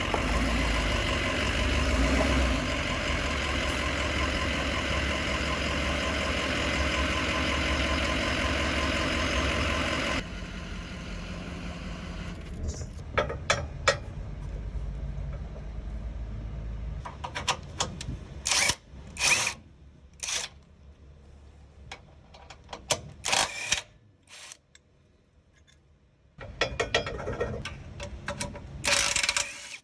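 Vehicle engine running steadily for about ten seconds, then the sound drops off, followed by a series of sharp knocks and clicks.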